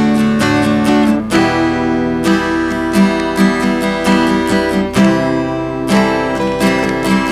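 Four phone-recorded acoustic guitar tracks playing back together unmixed, with repeated strums over ringing notes. The parts clash messily and carry an unwanted low humming, boomy bass noise that has not yet been cut by EQ.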